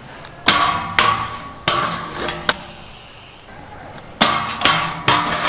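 Stunt scooter knocking on a steel grind rail and concrete: about eight sharp metallic clacks, each with a short ring. Four come spread over the first couple of seconds and a quick cluster comes near the end as the scooter hits and rides the rail.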